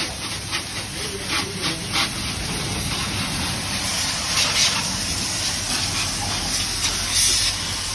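Pressure-washer water jet hissing and splashing against a motorcycle, with a few brief louder bursts of spray.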